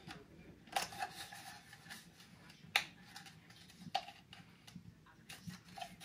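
Plastic vacuum cyclone and filter parts being handled: scattered light clicks and taps, with a few sharper clicks among them.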